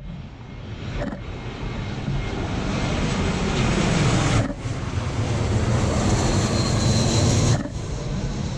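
Jet airliner's engines rumbling as it passes low overhead, growing louder toward the middle with a faint high whine on top. The sound drops out sharply for an instant about a second in, near halfway and near the end.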